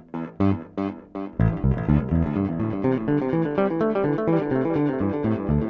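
Six-string electric bass (Dingwall ABZ) playing plucked notes through a Dawner Prince Boonar, an emulation of the Binson Echorec disc echo, set to one playback head for dotted-eighth-note echo repeats. About a second and a half in, the echoes pile up into a dense, steady rhythmic cascade.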